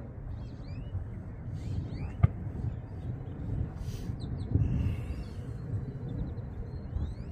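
Wind rumbling steadily on the microphone, with scattered short, high bird chirps and one sharp click about two seconds in.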